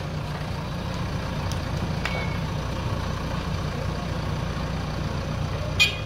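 JCB backhoe loader's diesel engine running steadily as the machine drives slowly, with one short sharp clank near the end.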